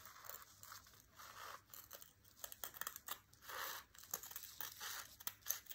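Scissors cutting through a dried sheet of Flexi-glass, glass powder bound in a flexible medium: faint, irregular crunching snips and crackles.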